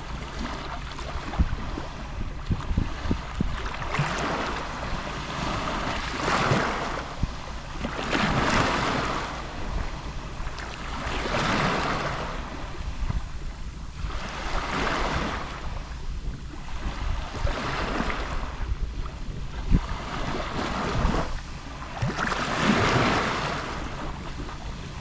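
Gentle Mediterranean sea waves lapping on the shore, each small wave washing in and fading every two to three seconds, over a low rumble of wind on the microphone.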